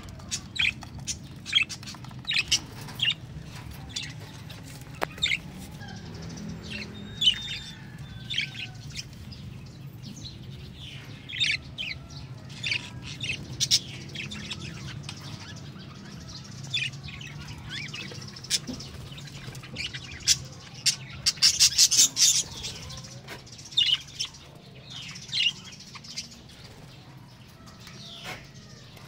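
Budgerigars chirping in an aviary: many short, sharp calls scattered throughout, with a quick run of calls a little past two thirds of the way through.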